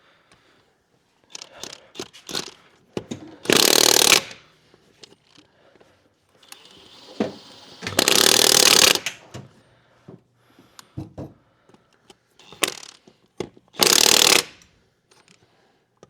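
Cordless impact wrench hammering on lug nuts in three bursts of about a second each, with short metallic clanks and knocks in between.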